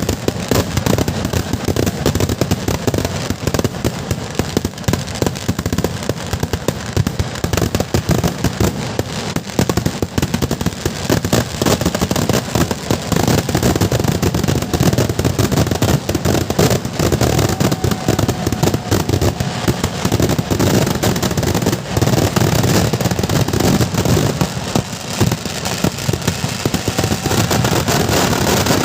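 A continuous barrage of firecrackers and fireworks going off, a dense run of sharp bangs and cracks so close together that they overlap into one rattling roar.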